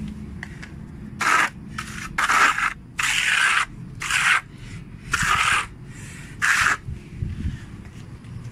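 Rough scraping on a gritty concrete surface in about seven separate strokes, each under a second, with short gaps between them.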